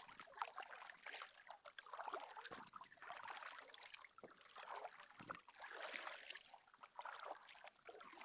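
Faint splashes and drips as a double-bladed kayak paddle dips in and lifts out of calm water, stroke after stroke in an uneven rhythm.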